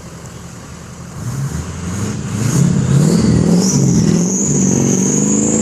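An engine accelerating, growing much louder from about a second in, with a high whine rising toward the end.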